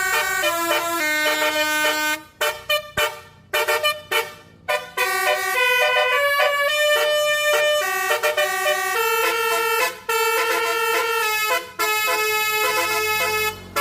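Indonesian bus 'basuri' melodic air horn (telolet) playing a tune in quick separate notes, with a run of short choppy toots broken by gaps about two to five seconds in.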